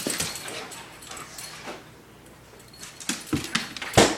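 A dog scrambling after a laser pointer's red dot: scattered short scuffles and clicks, and one loud thump about four seconds in.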